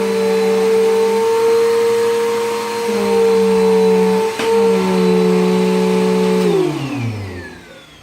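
Vacuum cleaner motor running with a loud steady hum whose pitch steps slightly up and down, with a brief click about four and a half seconds in. Near the end it is switched off and the hum falls in pitch as the motor winds down.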